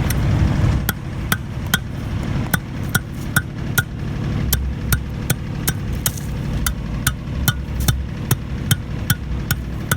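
Hand plate tamper striking hot asphalt along the edge of a fresh patch, a steady run of sharp thuds, about two to three a second, beginning about a second in.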